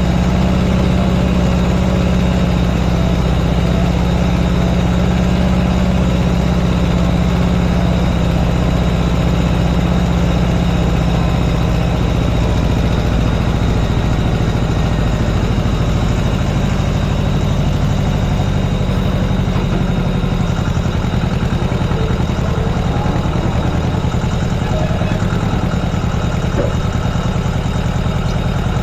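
Farm tractor engine running steadily, its low note shifting a little about twelve seconds in.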